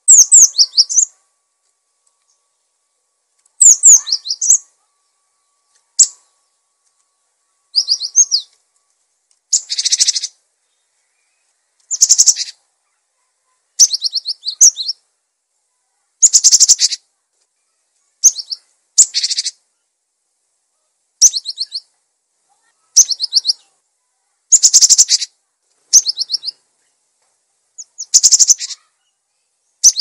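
Cinereous tit singing: short, high-pitched phrases of rapidly repeated notes, each under a second long, coming every one to two seconds with silence between.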